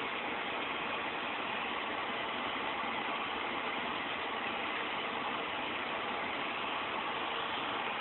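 Steady background hiss with no distinct sounds, even and unchanging throughout.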